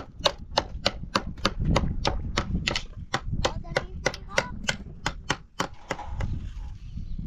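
Steady rhythmic knocking, about three to four sharp strikes a second, thinning out near the end.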